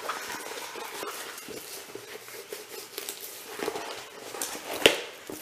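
Handling noise from a rolled diamond-painting canvas in its plastic sleeve being rolled the other way: soft rustling with scattered light ticks, and one sharp click near the end.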